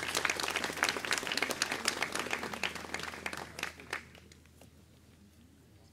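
Audience applauding, with the clapping dying away about four seconds in.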